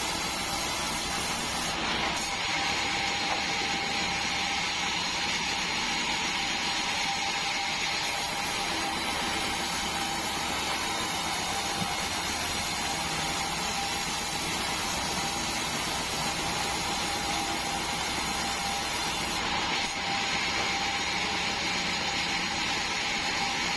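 Band sawmill running steadily: a constant whine over a noisy machine hum, with no pauses.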